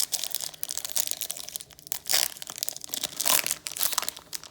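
Foil booster pack wrapper being torn open and crinkled by hand: irregular crackling rustles, loudest a couple of seconds in and again about a second later.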